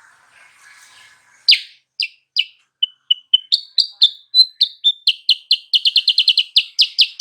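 Kutilang sutra singing. Sharp, high chirps begin about a second and a half in, spaced out at first, then speeding up into a fast, even run of chirps. This is a lure call meant to provoke a rival kutilang sutra into answering.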